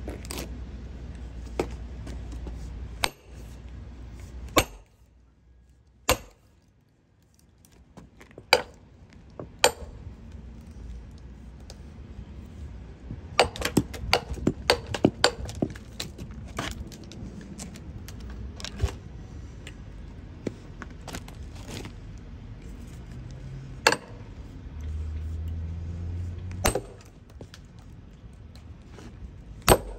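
Separate blows ringing on a steel splitting wedge being driven into a hickory log, a second or more apart, with a flurry of quick sharp clicks about midway through. A low rumble runs under the start and returns briefly near the end.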